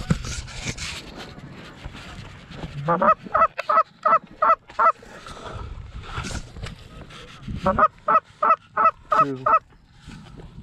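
Canada goose honking: two quick runs of about eight honks each, the first starting about three seconds in with a low note breaking upward, the second about eight seconds in.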